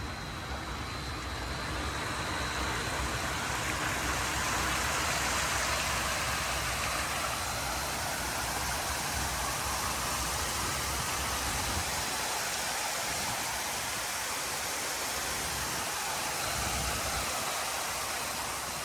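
Cooling tower water falling from the fill like heavy rain and splashing into the basin: a steady rushing that grows a little louder over the first few seconds as the circulating water comes back up after a restart.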